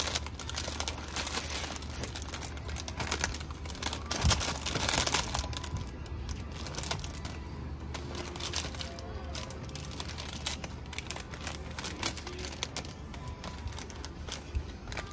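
Clear plastic bags crinkling and crackling as a hand handles packaged figures hanging on display pegs, loudest about four seconds in, over a low steady hum.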